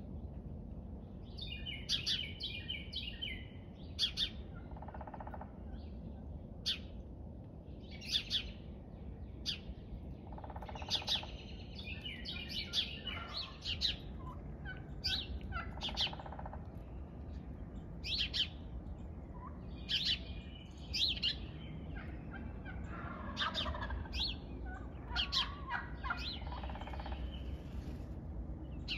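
Wild turkeys calling a few times among frequent short, high songbird chirps, over a steady low background rumble.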